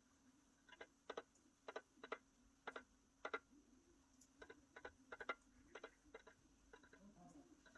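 Great tits pecking at food on a feeder: faint, sharp, irregular taps, often in quick pairs or short runs, about a dozen in all.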